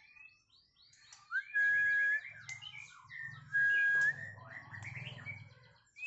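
White-rumped shama singing short whistled phrases and chirps, with two loud, long, level whistles about two seconds apart. The repeated, plain phrasing is what the keeper calls a monotonous song, not yet the bird's full repertoire.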